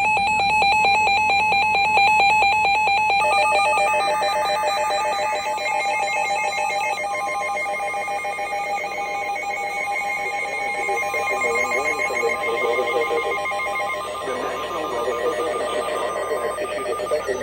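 Emergency Alert System broadcast tones: fast warbling data-header bursts, then several electronic alert tones layered over one another. A single steady warning tone sounds from about seven seconds in until shortly before the end.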